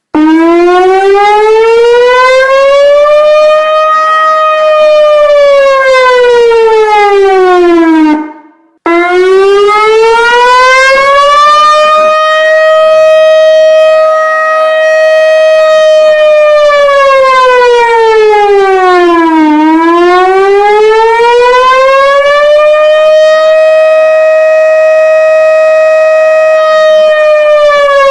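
Civil defence warning siren sounding a slow wail. Its pitch climbs over about three seconds, holds, then falls, in three long rise-and-fall cycles. The sound drops out for about half a second about eight seconds in.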